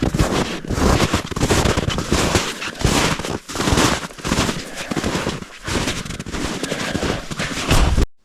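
Footsteps crunching and trudging through deep snow, a loud, rough, irregular crackling with low rumble that cuts off suddenly near the end.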